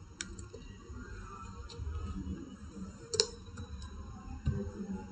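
A few scattered computer keyboard keystrokes, single sharp clicks a second or so apart with the loudest about three seconds in, over a low background rumble.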